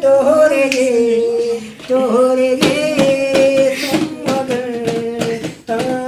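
Festive live music: long held melody notes, broken every second or two, over a beat.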